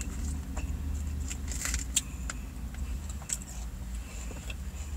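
A fork clicking and scraping against a plastic takeout container of salad, a dozen or so scattered clicks, over a steady low rumble in a car cabin.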